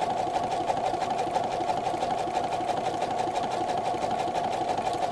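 Computerized domestic sewing machine running slowly and steadily while sewing a wide, close satin stitch. It makes a steady motor hum with rapid, even needle strokes.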